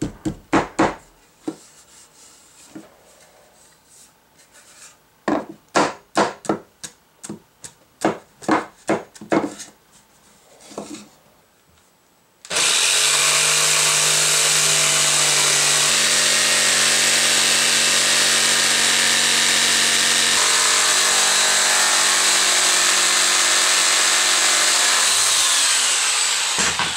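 Two runs of knocks on wooden boards as the pieces of a frame are tapped into place by hand. Then an electric jigsaw starts about halfway through and runs steadily with a high whine, cutting a curve through a thick spruce-pine-fir board, and it cuts out briefly near the end as the cut is finished.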